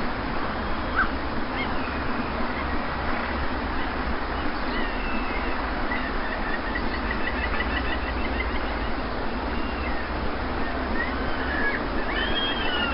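Steady wash of sea surf with birds calling over it: scattered short chirps, a quick trill of repeated notes in the middle, and a cluster of calls near the end.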